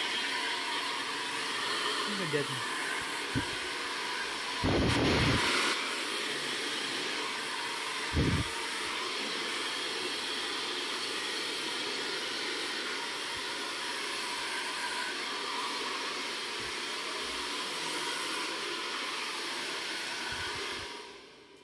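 Hand-held hair blow dryer running steadily, with a few low thumps along the way; it cuts off just before the end.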